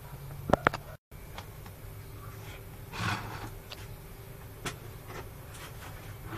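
A metal spoon clicking and scraping against a plastic plate of stew, with two or three sharp clicks about half a second in and a few lighter clicks and scrapes later, over a steady low hum.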